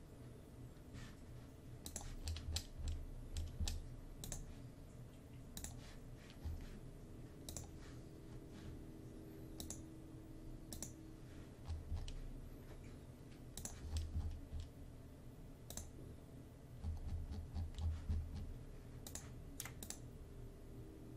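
Scattered, irregular clicks of a computer mouse and keyboard, faint and close, with a few clusters of dull low thuds on the desk.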